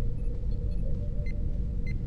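Starship bridge ambience sound effect in the style of the Enterprise-D: a steady low engine hum with a held mid tone, and soft electronic computer blips scattered over it, two clearer ones near the end.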